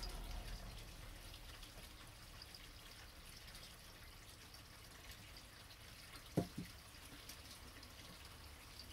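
Water dripping and trickling from a wet cloth filter bag into a cup, faint small drips throughout. Two quick knocks about six and a half seconds in.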